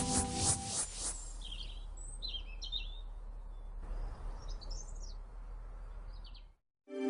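Background music ends about a second in. Then small birds chirp in short, quick phrases over faint outdoor ambience with a steady low hum, all cutting off suddenly shortly before the end.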